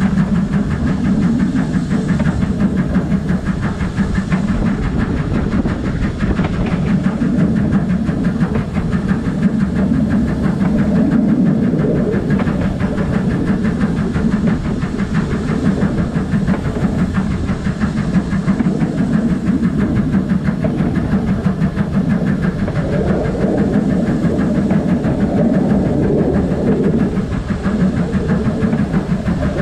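BR Standard Class 5 steam locomotive 73156 running along the line, heard from the engine itself: a steady, loud mix of wheel-on-rail clatter and steam hiss.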